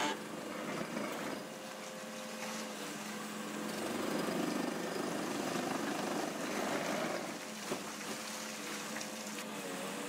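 Volvo excavator's diesel engine running steadily while its Xcentric XR40 hydraulic ripper attachment works into a quartzite flagstone quarry face. The rattling, grinding noise of the work swells a few seconds in as rock breaks away, then eases.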